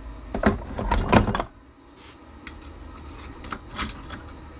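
Metal tools and parts clinking and rattling as they are handled at a workbench: a burst of clatter about half a second in lasting roughly a second, then a few light ticks.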